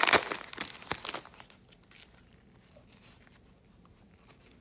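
Foil wrapper of a trading card pack crinkling as it is torn open and peeled off, dense for about the first second, then dying down to faint rustling as the cards are handled.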